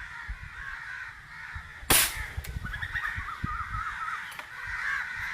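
A single sharp crack of a pellet gun firing, about two seconds in, over a constant chatter of bird calls.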